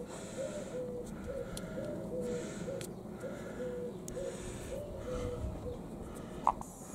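A pigeon cooing in a steady run of repeated low notes that stops about a second before the end, with faint clicks of wires being handled and a short sharper click near the end.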